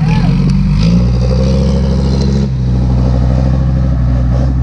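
Dump truck's diesel engine running under load, its note changing about a second in and again about halfway through.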